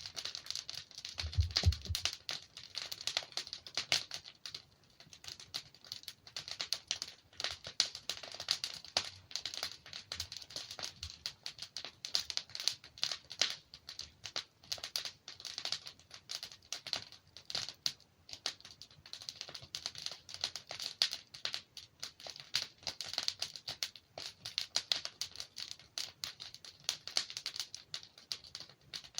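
Wood fire burning in a fireplace: a dense, irregular crackling of many small pops and snaps, with a soft low thump about a second and a half in.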